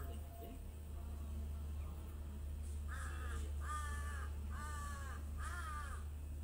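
A crow cawing four times, a little under a second apart, starting about halfway through, over a steady low hum.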